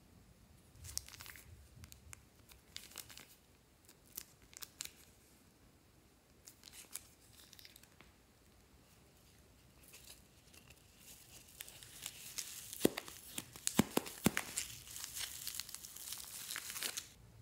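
Thin plastic piping bags crinkling in the hands: faint, scattered crinkles and clicks at first, then from about ten seconds in a denser, louder crinkling with a few sharp clicks, as a piping bag packed with foam beads is handled.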